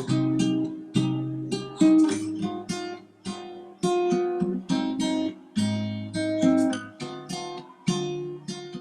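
Background music: an acoustic guitar strumming a run of chords.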